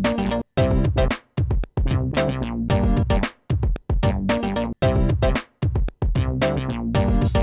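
Electronic music: a drum-machine beat with synth chords and bass sampled from a Korg Minilogue XD. The chords and beat cut off abruptly into brief gaps several times, giving a choppy, stop-start rhythm.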